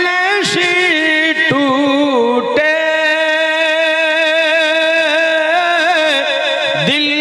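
A man singing an Urdu naat solo into a microphone, with no instruments. He sings ornamented, wavering phrases for the first two and a half seconds, then holds one long steady note until near the end.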